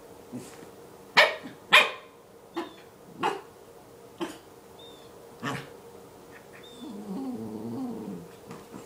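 Small white curly-coated dog giving a string of short, sharp barks, the two loudest about a second in, then a low, wavering growl lasting about a second near the end.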